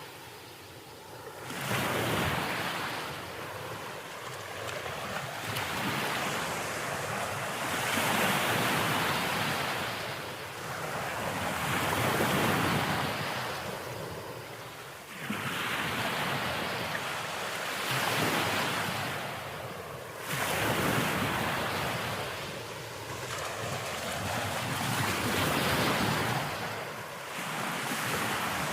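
Ocean waves breaking and washing up a beach, one surge after another every few seconds, each swelling and then falling back.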